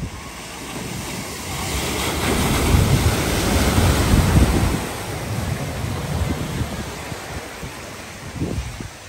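A car ploughing through deep floodwater at a ford, its bow wave rushing and splashing, building to loudest as it passes close about three to four seconds in, then fading.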